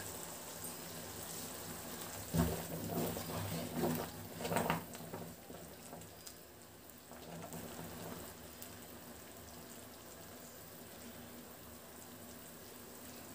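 A pot of sambar boiling on the stove, a low, steady bubbling. A few short, louder sounds come between about two and five seconds in.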